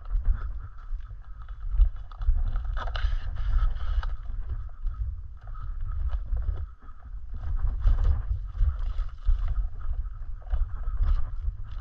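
Mountain bike riding over a dirt forest trail: a steady low rumble from the ride on the camera microphone, with scattered rattles and knocks as the bike goes over bumps.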